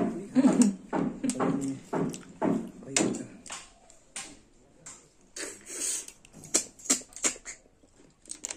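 A person eating cooked river snails: sucking the meat out of the shells and chewing, a run of slurps and wet lip-smacking clicks, busiest in the first few seconds.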